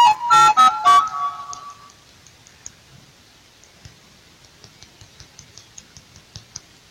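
A short run of musical notes fades out in the first two seconds. After it come faint, irregular taps of a fingertip on a phone's touchscreen.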